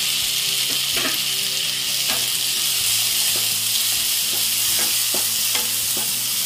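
Chopped onions and tomatoes sizzling in hot oil in a non-stick pan while being stirred, with a steady hiss and several short scrapes of the utensil against the pan.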